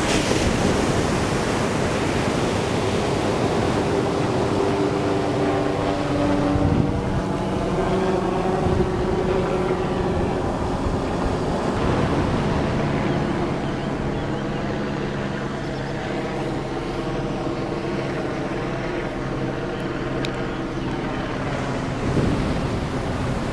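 Ocean surf breaking and washing up a sand beach in a steady rush, with wind buffeting the microphone. A faint low hum runs underneath.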